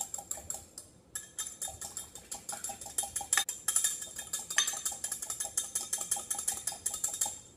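Metal whisk beating an oily marinade in a glass measuring cup: a fast, even clinking of the wires against the glass, several strokes a second, with a short pause about a second in.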